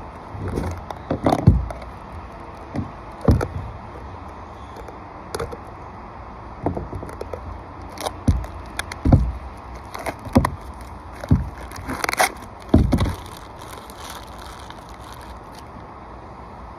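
Peel-and-stick butyl flashing tape being handled and pressed down: irregular crackles, scrapes and dull thumps, about a dozen in all, spaced unevenly.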